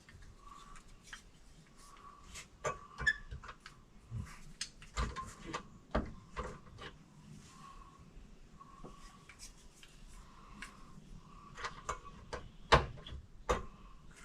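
Irregular clicks and knocks of plastic interior trim being handled and pushed into place in a pickup cab, with one sharper knock near the end.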